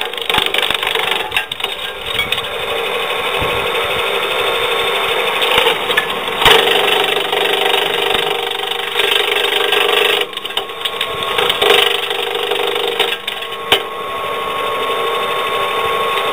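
Electric-motor-driven branch chipper running with a steady hum while its blades cut and splinter branches fed in by hand, a dense crackle with a few sharp cracks of wood breaking.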